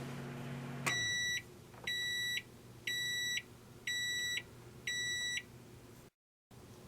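Emerson microwave oven humming, then shutting off about a second in and sounding its end-of-cycle alert: five beeps, about one a second.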